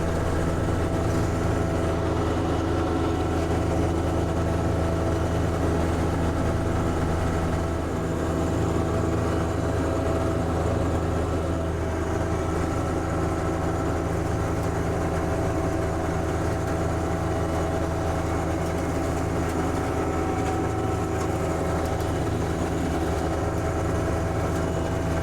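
John Deere 1025R compact tractor's three-cylinder diesel engine running steadily at an even speed.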